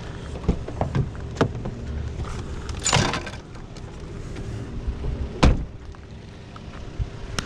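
Knocks and clunks of salvaged items being handled, a scraping rustle about three seconds in, then a loud door slam about five and a half seconds in, over the steady hum of an idling vehicle engine.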